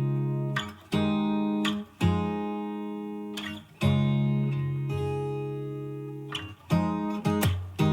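Background music: acoustic guitar chords strummed about once a second, each ringing out and fading before the next.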